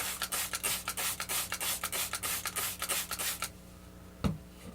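Quick scratchy rubbing strokes, about five a second, as wood glue is worked into the broken headstock joint. The strokes stop about three and a half seconds in, and a single dull thump follows near the end.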